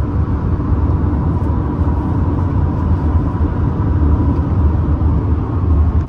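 Steady road and engine noise inside a moving car's cabin, a loud even low rumble with no distinct events.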